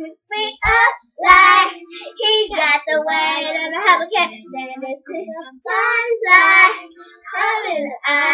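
Young girls singing in phrases, with a couple of low thumps in the first second and a half.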